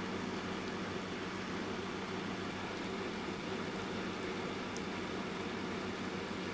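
Electric fan running steadily, a low hum under an even airy hiss, layered with soft, light rain.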